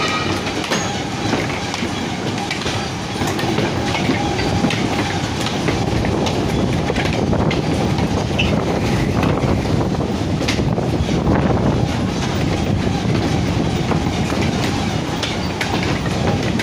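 Steady, loud mechanical clatter of coconut-unloading work, with many small knocks and clicks over a running rumble.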